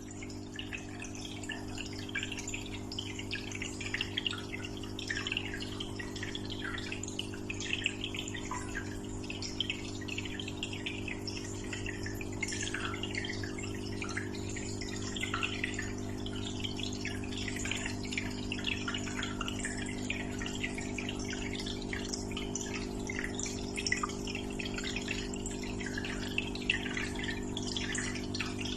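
Water trickling and splashing continuously into an aquarium, many small irregular splashes, over a steady low hum.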